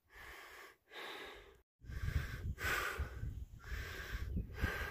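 A hiker breathing heavily, a run of breaths in and out about a second apart, over a low rumble on the microphone.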